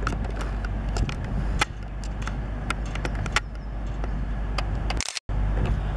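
Diesel engines of a Class 222 Meridian unit running at the platform: a steady low rumble, with scattered sharp clicks and knocks over it. The sound cuts out briefly about five seconds in.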